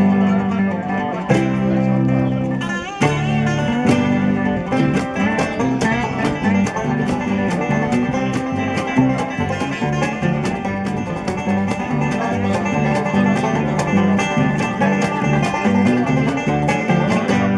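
Bluegrass band playing a tune live on banjo, mandolin, acoustic guitar, dobro and upright bass, with a cajon keeping a steady beat.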